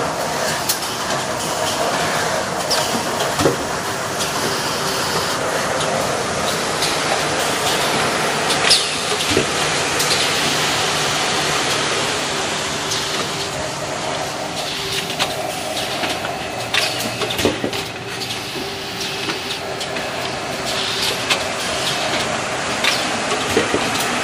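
Automatic toilet-paper single-roll packing machine running: a steady mechanical whir and hiss, with irregular sharp clicks and clacks from its moving parts.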